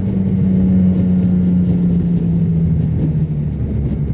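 Motorcycle engine running at a steady cruise, its pitch sinking slowly as the revs ease off, under rushing wind noise.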